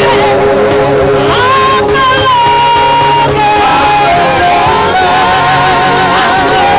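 Live gospel worship music: a singer holding long notes with vibrato over steady band accompaniment.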